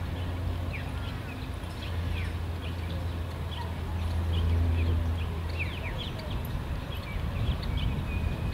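Small birds chirping in short, scattered calls over a low steady hum.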